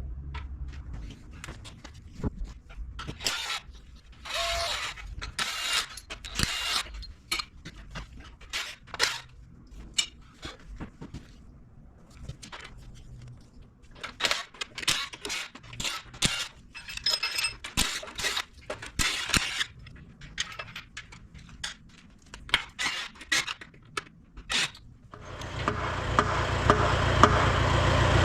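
Metal hand tools clinking and scraping on engine parts during a diesel engine teardown, in scattered short strokes. About 25 seconds in, a steady low motor-like drone starts and grows louder.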